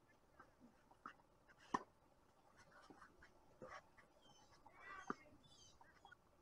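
Tennis ball struck back and forth in a rally: a few sharp racket-on-ball pops over near silence, the loudest about two seconds in and the others roughly one and a half to two seconds apart.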